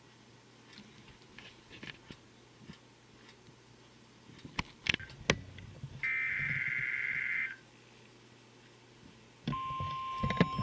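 Weather radio receiver playing a NOAA Weather Radio SAME digital data burst, a buzzy electronic screech lasting about a second and a half, about six seconds in. Near the end, the steady warning alarm tone of about 1 kHz comes on, with clicks over it. Before that, only faint clicks are heard.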